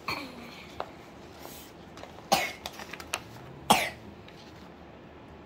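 A person coughing twice, about a second and a half apart, with a few faint clicks and rustles of sticker sheets between the coughs.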